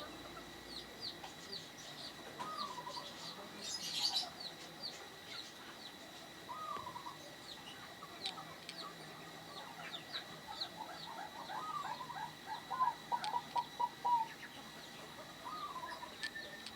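Zebra dove cooing in short rolling phrases, a few single phrases and then a longer run of repeated notes about ten seconds in. Faint high chirps run underneath.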